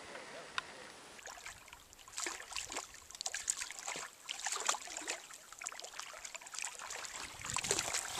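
Water splashing and sloshing beside a canoe, in irregular bursts from about two seconds in, after a single click just before.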